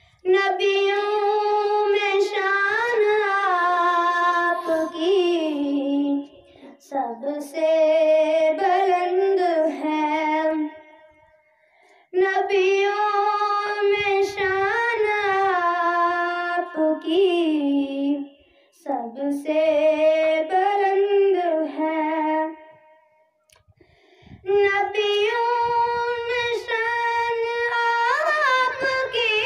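A boy singing an Urdu naat unaccompanied, in five long melodic phrases with short silent breaks between them.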